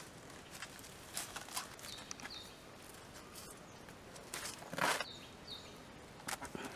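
Crackling rustle of a cucumber vine and dry leaves as a large ripe cucumber is handled and picked, the loudest rustle about five seconds in. A bird chirps briefly a few times.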